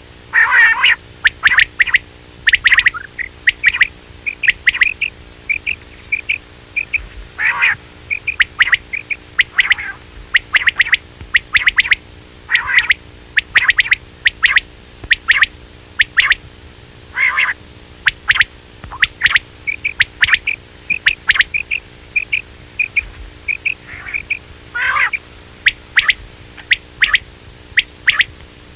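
Quail calling over and over: quick runs of short, sharp notes mixed with occasional longer harsh calls, a recorded quail call played as a hunting lure.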